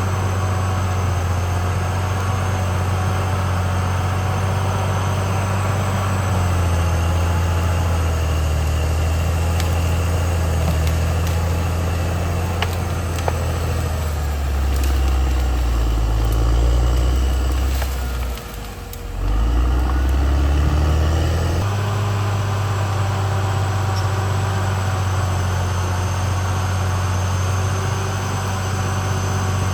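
Caterpillar D6R XL bulldozer's diesel engine running with a steady low note. For a long stretch in the middle its pitch drops and it grows louder, with a brief fall-off about two-thirds of the way through, before it snaps back to the earlier steady note.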